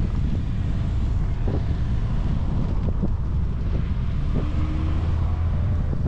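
Wind rumbling on the microphone of a camera on a moving bicycle, with a few light knocks from the ride. A car's engine hum comes in for about a second after the four-second mark.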